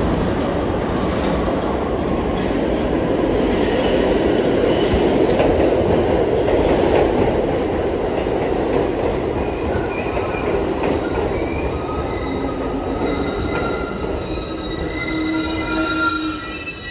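An R62/R62A subway train running through the station: a steady loud rumble of wheels on rail, with high-pitched wheel and brake squeals coming in over the last few seconds.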